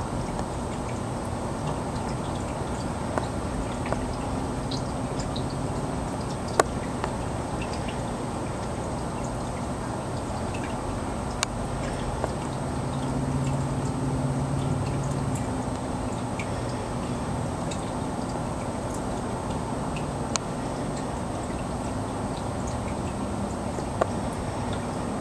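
Aquarium filter running: a steady trickle of water over a low hum, with a few sharp clicks scattered through.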